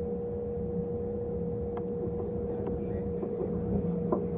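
Kintetsu electric train pulling away from a station, heard from inside the driver's cab: a steady running rumble with a constant hum and a few light clicks.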